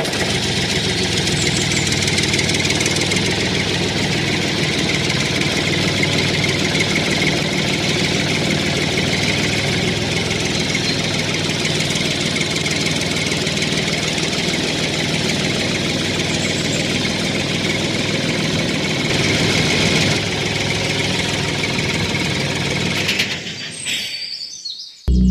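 A motor running steadily, dropping away about a second before the end.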